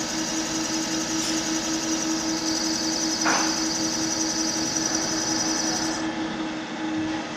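Valve-seat cutting machine milling an 86 mm valve seat in a locomotive engine cylinder head: the spindle runs with a steady hum while the cutter scrapes the metal, with a brief scratchy burst about three seconds in.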